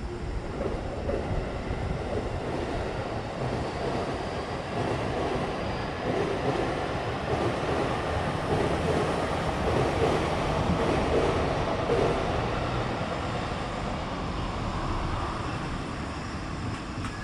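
Electric train passing on the tracks, its running noise building to a peak about ten seconds in and then fading away.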